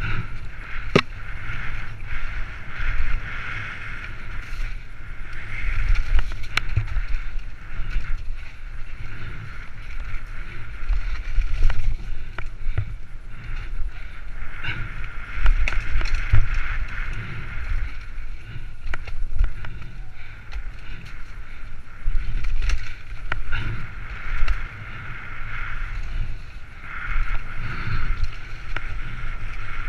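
Mountain bike running fast down a rough dirt singletrack, heard from a helmet-mounted camera: wind buffeting the microphone as a low rumble that swells and fades, over a steady rushing hiss from the tyres and a rattling bike. Sharp knocks from bumps in the trail come now and then.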